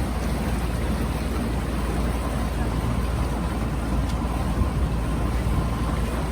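Small motorboat under way: a steady low rumble with an even rushing noise over it.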